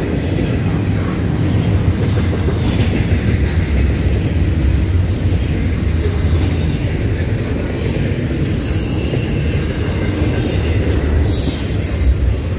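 Double-stack intermodal freight train's well cars rolling past with a steady rumble, and a high-pitched wheel squeal that comes in briefly a few times in the second half.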